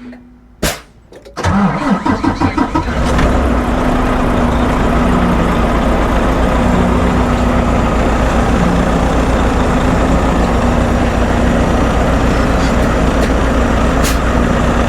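A 2019 Volvo VNL 860's D13 diesel engine cranking on the starter for about a second and a half, catching about three seconds in, then settling into a steady idle. The just-refilled power steering runs without any noise.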